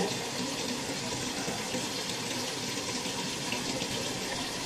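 Sink tap running steadily into the basin.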